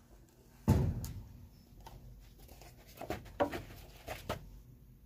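Handling noises while sorting through old papers and objects on a shelf: a thump about a second in, then several light knocks and rustles.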